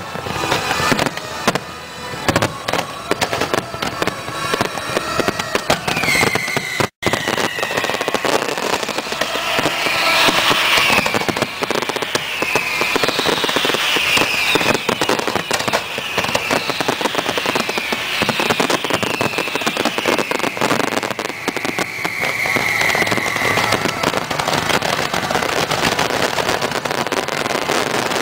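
Fireworks display at full intensity: a dense, continuous barrage of bangs and crackling with music underneath. A string of high gliding whistles repeats about once a second through the middle, and the sound drops out for an instant about seven seconds in.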